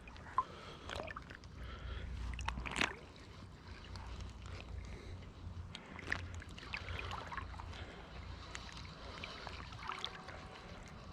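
Legs wading through deep, fast-flowing creek water: irregular sloshing and splashing around the legs over a low rumble, with a sharper splash about three seconds in.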